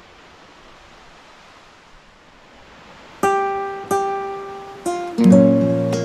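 Background acoustic guitar music: after about three seconds of faint hiss, three single plucked notes ring out, then fuller strummed chords come in near the end.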